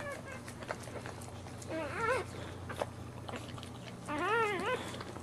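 Newborn boxer puppy squealing while its mother licks it: a short cry at the start, another about two seconds in, and a longer wavering cry about four seconds in, with small wet licking clicks in between.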